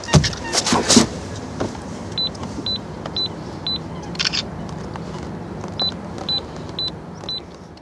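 Camera self-timer beeping: two runs of four short, high beeps, about two a second, each run ending in a brief shutter-like click. A few loud handling knocks come at the start, over a steady background hum.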